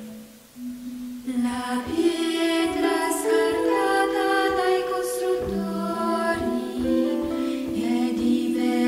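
Music: a slow song sung by voices, with long held notes, coming in a little over a second in after a brief lull.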